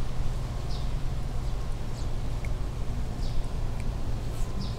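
Small birds chirping, short falling calls about once a second, over a steady low rumble.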